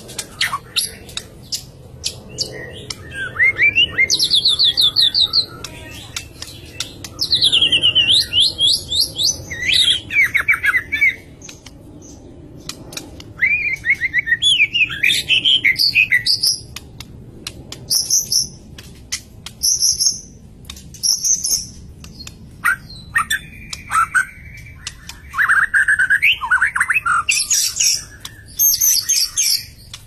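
White-rumped shama singing: loud, varied phrases of rapid repeated notes and trills, with many sharp clicks, coming in bursts of a few seconds separated by short pauses.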